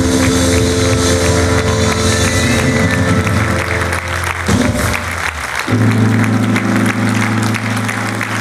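Live band holding long sustained chords, cutting off about four and a half seconds in and coming back on a new chord a second later, with audience clapping underneath.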